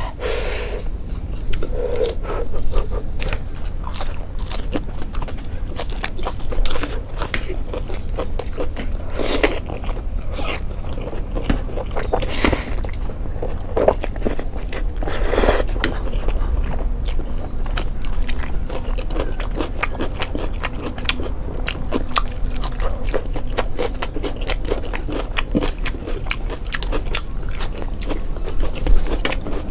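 Close-up eating sounds of people chewing and biting black bean noodles and side dishes: continuous irregular mouth clicks and chewing, with a few louder noisy moments along the way.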